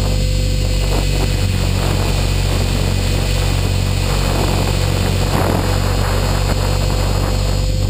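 Align T-Rex 450 Pro electric RC helicopter in flight, heard from a camera mounted on its nose: the rotor and motor run at a steady speed with a constant hum.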